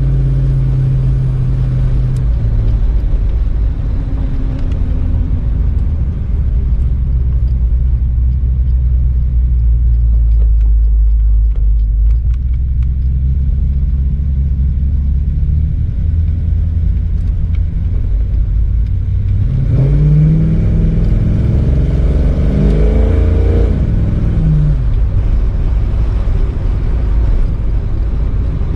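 Old car's engine running with a steady low rumble, briefly revved up about two-thirds of the way through and then easing back down.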